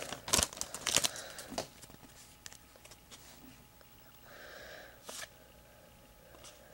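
Baseball card packs and cards being handled: a few sharp crinkles and clicks of the wrapper in the first second and a half, then quiet handling with a soft rustle and a single click about five seconds in.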